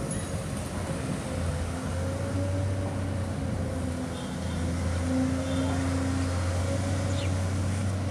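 Long-reach tracked excavator's diesel engine running steadily under load, with a faint wavering whine, as it lifts a bucket of black sludge out of the water.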